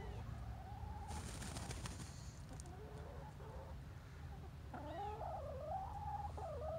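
Hens calling with drawn-out notes that waver and slide in pitch, a short run near the start and a longer stretch about five seconds in. About a second in, a short rustling noise.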